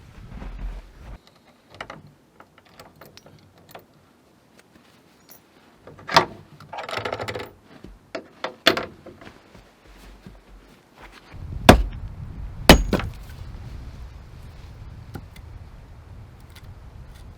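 Handling of an old tin kerosene lantern being hung up: scattered metal clicks and clinks, a short rattling scrape about seven seconds in, and two heavy knocks about twelve and thirteen seconds in.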